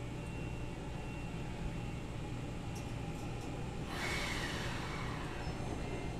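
Keisei commuter train standing at the platform with a steady low hum; about four seconds in, a sudden hiss of air with a tone falling in pitch, as its brakes release for departure.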